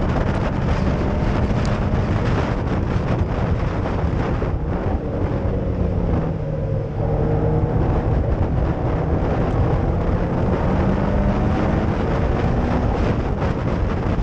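Caterham Seven Supersport's Ford Sigma four-cylinder engine at racing speed, heard onboard with wind noise over the open cockpit. The revs fall about five seconds in as the car goes through a corner, then climb steadily as it accelerates out.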